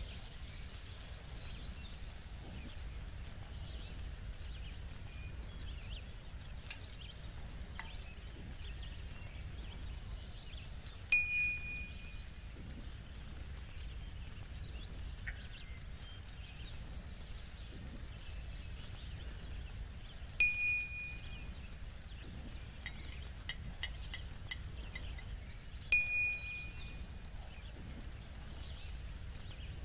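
A bright metallic ding, struck three times several seconds apart, each stroke ringing out for about a second over a faint steady background.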